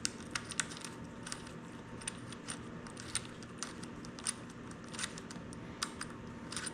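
Light metallic clicks and clinks, irregular and a few a second, as handguard clamp bolts are threaded in and snugged with a 5 mm Allen T-handle against the aluminium handlebar hardware.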